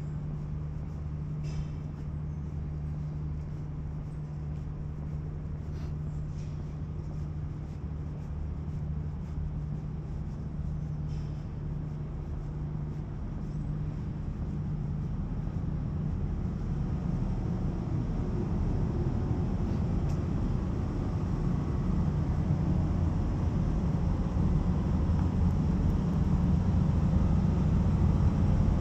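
Steady low industrial machinery hum with several steady tones, growing louder over the second half as the plant buildings get closer.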